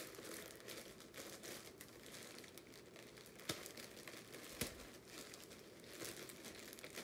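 A clear plastic bag holding yarn, crinkling faintly as hands handle it and pull it open. Two sharper crackles come about three and a half and four and a half seconds in.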